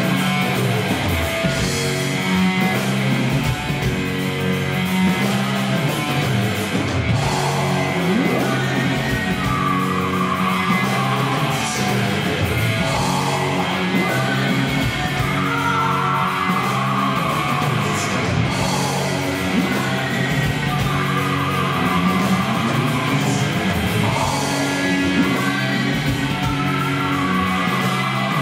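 Live rock band playing: electric guitar, bass guitar and drums with a steady beat, and a male singer comes in with loud sung lines about a third of the way through.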